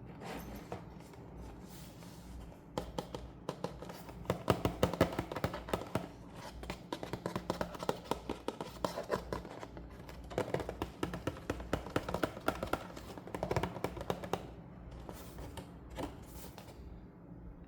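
Hands unboxing toy packaging: a dense run of small taps, clicks and crinkles that starts about three seconds in and thins out near the end, over a faint low hum.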